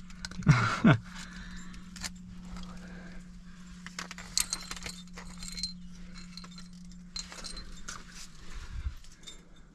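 Trad climbing rack of carabiners and cams clinking on a harness, scattered metal clinks all through as the climber moves. A brief loud vocal sound about half a second in.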